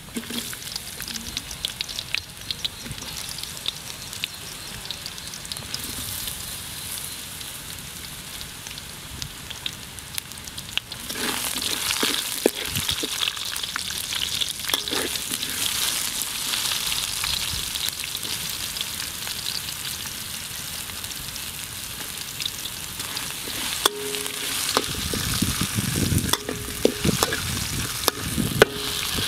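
Oil sizzling in a steel wok as garlic and chunks of green vegetable fry, with a metal spatula scraping and clinking against the pan as it stirs. The sizzle grows louder about a third of the way in.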